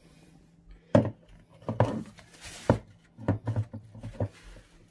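Hard plastic clacks and clicks from a Kenwood Blend-Xtract personal blender's jar and blade unit being handled with the motor off: the jar is lifted off the motor base and the blade cap is worked loose. The loudest clack comes about a second in, with another sharp one near the middle and a cluster of lighter clicks after it.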